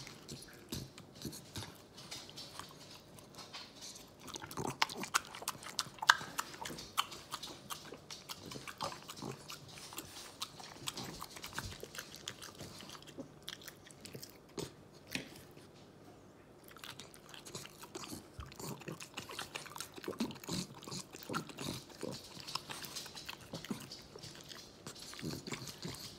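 A boxer dog chewing and smacking its lips over banana slices with peanut butter: a steady run of wet clicks, smacks and licks, dying down for a few seconds in the middle.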